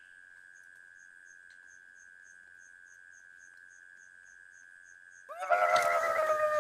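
Steady, faint chirring of crickets with a faster ticking insect above it. About five seconds in, a madman's loud, high-pitched, drawn-out scream cuts in and falls in pitch as it ends.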